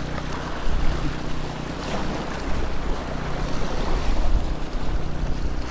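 Small waves washing and splashing against jetty rocks, with wind on the microphone, over a steady low hum.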